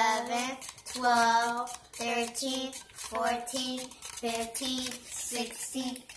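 A young girl's voice chanting in a sing-song on a near-level pitch, in short syllables about two a second, with one longer drawn-out syllable about a second in.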